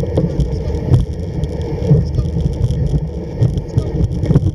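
Home-made kick sled's runners rumbling and scraping over a snowy trail while dogs pull it, with irregular knocks and clicks from the sled.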